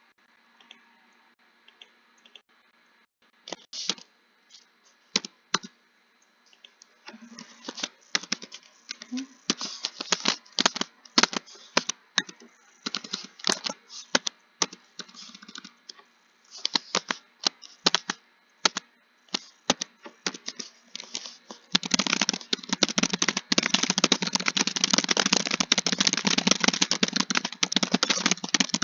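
Typing on a computer keyboard. A few scattered keystrokes come first, then bursts of quick typing with short pauses, and the last several seconds are fast, continuous typing.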